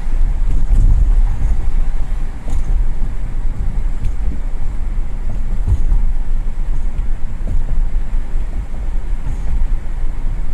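2001 Audi A8L on the move: a steady low road and wind rumble, with a few faint clicks scattered through it a second or more apart. The clicks are the clicking-over-bumps fault the car is being recorded for.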